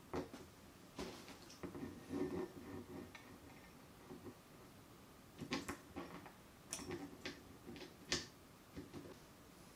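Handling noise from mounting a plastic sE reflection filter and its clamp hardware on a mic stand: scattered light clicks, knocks and rattles, with a few sharper clicks in the second half.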